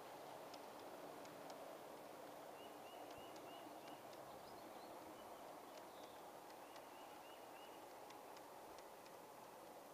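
G-scale model freight cars on metal wheels rolling past, a faint steady rolling sound with scattered clicks. A bird sings a short phrase of five quick chirps, a few seconds in and again later.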